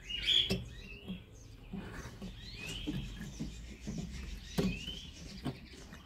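Canaries giving short chirping calls a few times, with light taps and rustles of birds moving about the cage.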